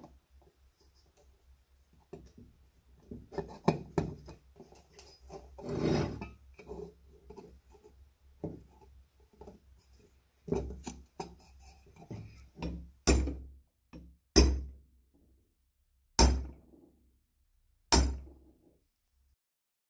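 Light clatter and rubbing as metal parts and a gasket are handled on a wooden bench, then four sharp metallic blows, spaced about one and a half to two seconds apart, as a punch held against the green cast metal housing is struck.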